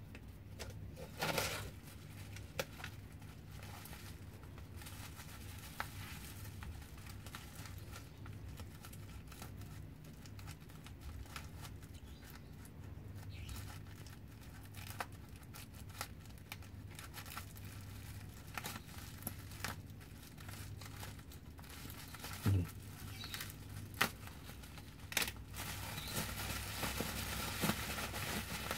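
Plastic bubble wrap crinkling and rustling as it is handled and cut open, with scattered sharp clicks and scissor snips, over a steady low hum. The crinkling grows denser near the end.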